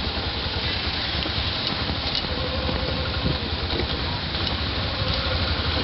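Steady vehicle engine and road noise while driving slowly over a muddy, potholed road in traffic, with a low rumble throughout.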